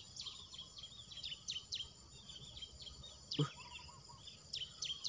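Small birds chirping: many short, high calls that slide downward, several a second. One sharp click about three and a half seconds in.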